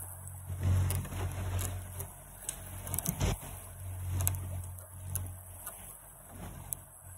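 Outboard motor of an inflatable coach boat running steadily, with wind gusting on the microphone and water rushing past the hull.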